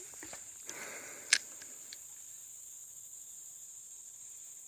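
Steady high-pitched drone of insects, with a brief rustle and a few sharp clicks in the first two seconds, the loudest about a second and a half in.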